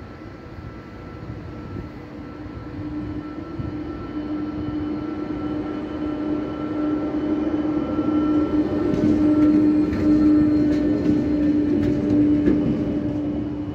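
ZSSK class 361 electric locomotive running light past the camera. It gives a steady hum with a clear tone that grows louder as it nears and is loudest as it passes. There is a run of clicks from the wheels over rail joints as it goes by, about nine to twelve seconds in.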